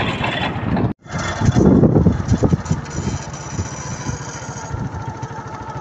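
Small vehicle engine running while moving, with loud wind and road rumble. The sound drops out for an instant about a second in, then a steadier engine hum carries on.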